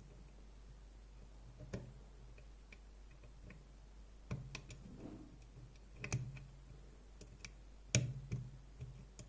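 Small sharp clicks and taps of a lock pick working the pins of a DOM iX6SR dimple lock. They come irregularly, sparse at first and more often in the second half, the loudest about eight seconds in.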